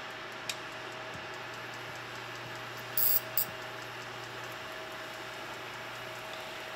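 Butter and garlic sizzling gently in a stainless steel skillet as a steady soft hiss over a low hum, with a metal utensil moving in the pan. There is a click about half a second in and two short sharp ticks about three seconds in.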